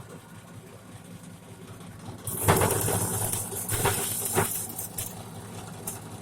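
Homemade motor-driven corn sheller running with a steady hum. From about two and a half seconds in there is a loud burst of clattering and hiss lasting a couple of seconds, as the machine works through corn.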